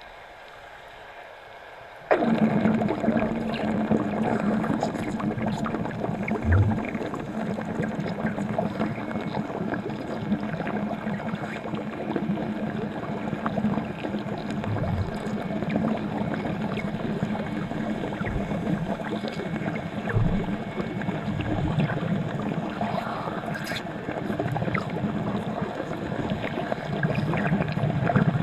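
Underwater wet arc welding: the arc strikes suddenly about two seconds in, then runs on as a dense, steady crackle over a low hum.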